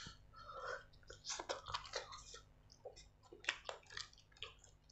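Close-miked eating sounds: irregular wet smacks and clicks of chewing, with roast chicken being torn apart by hand.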